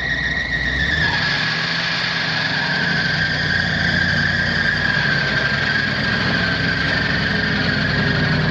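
1995 Ford F750's gasoline V8 engine idling steadily, with a constant high-pitched whine running alongside it.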